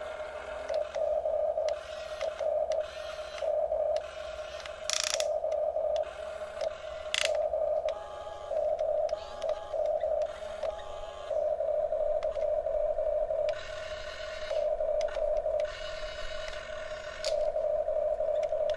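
Huina 1350 RC excavator's electric gear motors whining in short on-off stretches as the boom, arm and bucket move, with a couple of sharp clicks.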